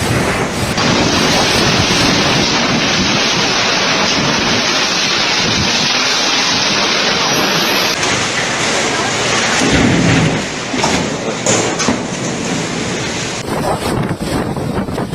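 Storm wind and rain in a loud, steady rush, with gusts buffeting the microphone; after about eight seconds it turns gustier and uneven, with a low rumble about ten seconds in.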